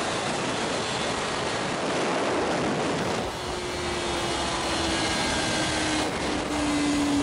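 Wind rushing over the rider-mounted camera at speed, with the 2006 Kawasaki Ninja ZX-6R 636's inline-four engine note under it. After about three seconds the engine tone comes through more clearly and falls slowly in pitch as the bike slows.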